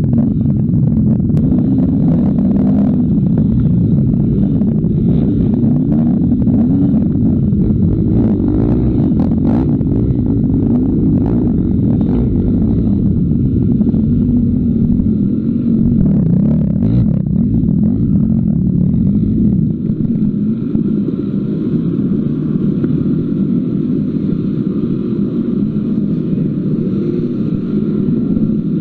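Dirt bike engine running under load off-road, its pitch rising and falling as the throttle opens and closes. Frequent short knocks and clatter over roughly the first two-thirds, easing off after that.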